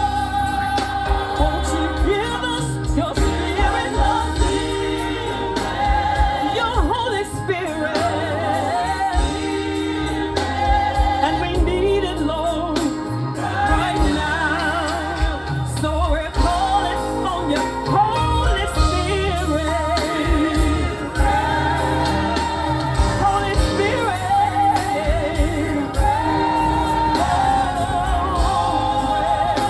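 Live gospel song: a lead voice singing sustained, wavering notes with vibrato over band accompaniment with a pulsing bass line.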